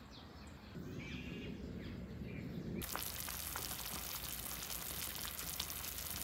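Small birds chirping, then, about three seconds in, a pot of chicken pieces and vegetables at a rolling boil on the stove: a steady bubbling hiss.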